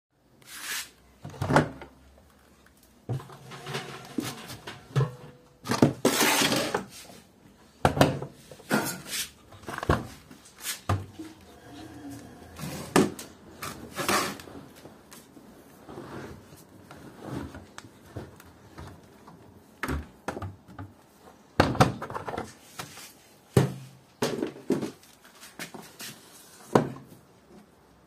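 Laundry being loaded by hand into a front-loading washing machine: cloth swishing, with an irregular series of knocks and thunks from handling the machine's door and detergent drawer.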